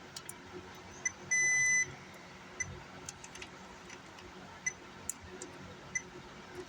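Digital multimeter beeping as its probes are touched to points on an amplifier circuit board: one steady half-second beep about a second in and several short chirps at the same pitch, with light clicks of the probe tips.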